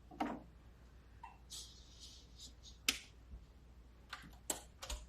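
Handling of a vinyl record at a turntable: a short rustle about one and a half seconds in, then several sharp clicks, the loudest about three seconds in and again near the end.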